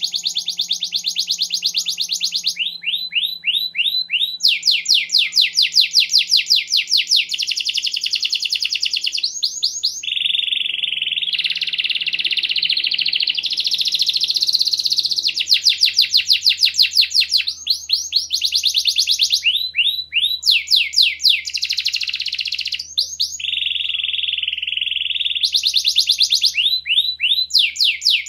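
Domestic canary singing a long, nearly unbroken song of fast trills and rapidly repeated notes, switching from phrase to phrase with barely a pause. A lower, denser trill comes near the middle and again near the end.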